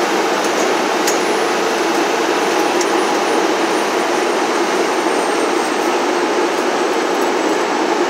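Loud, steady engine and road noise heard inside the crew cab of a fire squad truck on the move.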